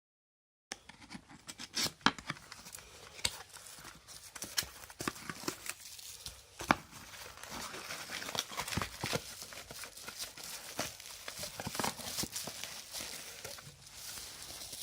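Packaging being handled and opened: crinkling and rustling of cardboard and plastic wrap, with irregular sharp clicks and knocks, two loud knocks about two seconds in and just under seven seconds in.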